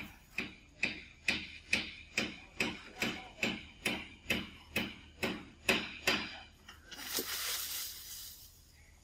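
A steady run of about fifteen sharp knocks, a little over two a second, that stops about two-thirds of the way through, followed by a short stretch of hissing noise.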